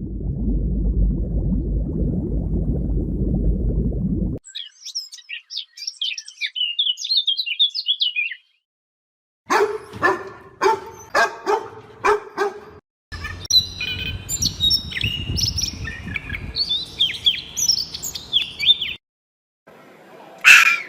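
A string of separate animal-sound clips joined by abrupt cuts: first a low rumbling noise, then small birds chirping in high, quick notes, then a run of about six short, pitched barking calls, then more bird chirping over a low background noise, and a single loud call near the end.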